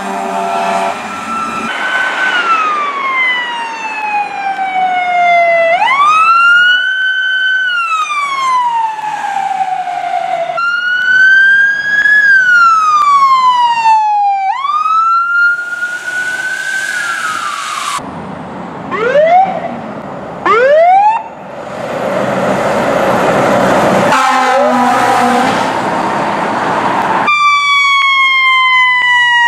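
Fire truck sirens on several apparatus in quick succession. The sirens wind up and slowly fall away again and again, with a few short rising chirps in the middle. Horn blasts sound at the start and again about three quarters of the way through.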